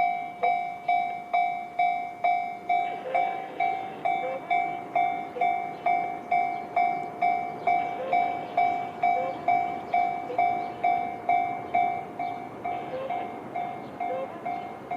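Japanese level-crossing warning bell in the JR standard sound, an electronic two-tone ding repeating a little over twice a second. From about 3 s in, a JR 211-series electric train runs through the crossing, its rumble swelling and then fading near the end while the bell keeps ringing.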